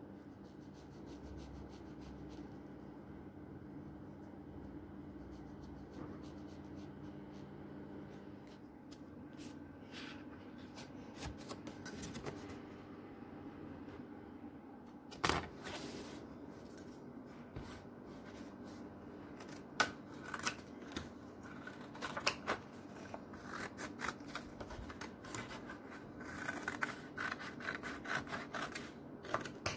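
Small handling noises over a steady low hum: scattered clicks, taps and rubbing scrapes, a sharp knock about halfway through, and a close run of scratchy rubbing near the end.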